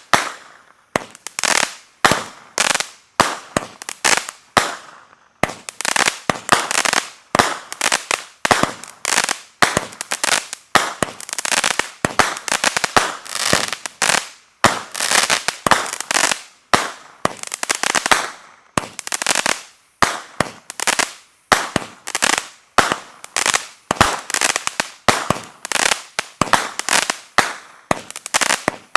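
A 200-gram Wildcard consumer firework cake firing shot after shot. Each shot is a sharp bang that dies away quickly, coming at a bit more than one a second with short gaps here and there.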